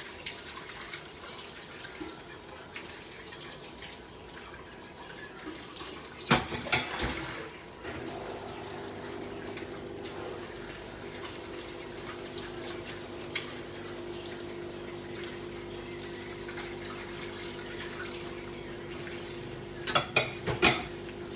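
Pots bubbling on the hob, a pot of tagliatelle boiling and a pan of tomato sauce simmering, with a clatter of pots and dishes about six seconds in and again near the end. From about eight seconds in a steady low hum joins.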